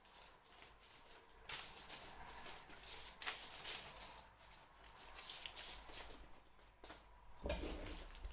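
Faint rustling as packaging and parts are handled, with a few light knocks.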